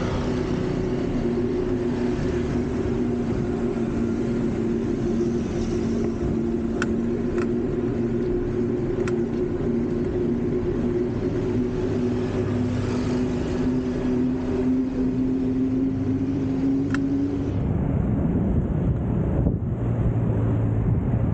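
Steady road and traffic noise heard from a moving bicycle, with a steady hum that rises slightly in pitch and stops about 17 seconds in, and a few sharp clicks.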